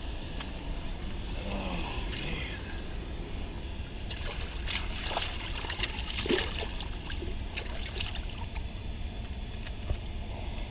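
A channel catfish splashing in the shallows as it is landed by hand, with a cluster of splashes in the middle. Underneath is the steady low rush of a river spillway.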